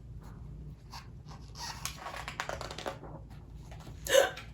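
A woman's voice making breathy, wordless sounds, then a short loud voiced cry near the end.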